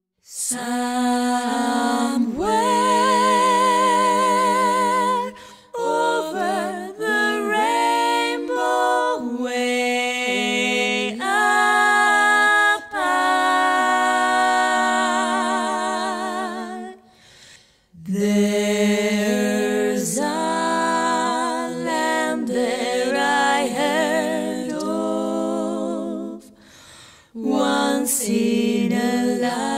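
Background music: unaccompanied singing with several voices at once, notes wavering with vibrato over a held low note. The phrases break off briefly about five, seventeen and twenty-seven seconds in.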